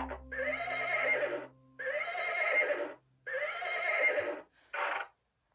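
A farm animal calling: three calls of just over a second each, each rising and then falling in pitch, then a shorter fourth call.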